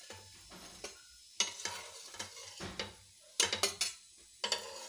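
A metal spatula scraping and clacking against a flat griddle (tawa) and a steel plate as cooked wheat-flour snacks are lifted off. There are several sharp clacks, most of them in the second half, over faint sizzling of oil on the hot pan.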